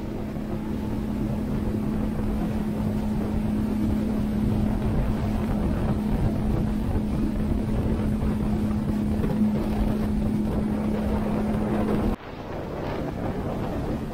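Small boat's outboard motor running at cruising speed, a steady hum under the rush of water along the hull and wind on the microphone. About twelve seconds in the sound cuts off and comes back as water and wind noise without the engine's tone.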